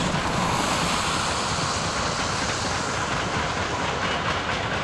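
DB class 64 two-cylinder steam tank locomotive working under full steam as it passes with its passenger coaches, a steady train noise with the coaches' wheels clicking over the rail joints.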